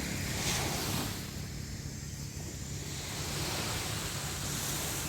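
Sea surf washing onto a beach, with wind on the microphone; the wash swells about half a second in and again near the end.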